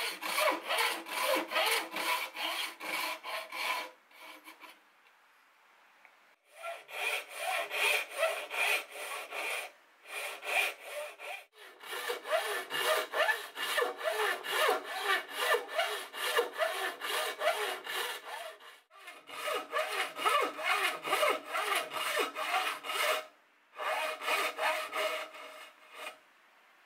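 Thin-bladed hand saw cutting dovetail kerfs into the end grain of a Taiwan cypress board: quick, even strokes, about three a second, in runs of a few seconds broken by short pauses between cuts.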